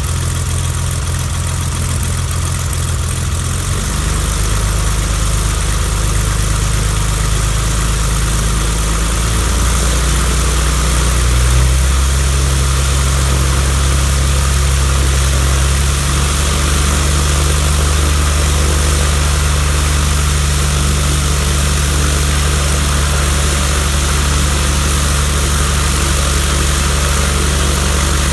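1964 Cessna 172F's Continental O-300 six-cylinder engine and propeller running steadily. The engine speed shifts in steps about four seconds in, again around ten to twelve seconds, and once more about sixteen seconds in.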